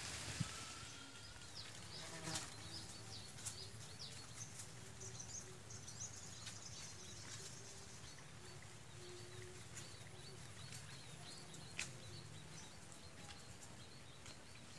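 Faint outdoor ambience with sheep bleating in the distance now and then among many small high chirps.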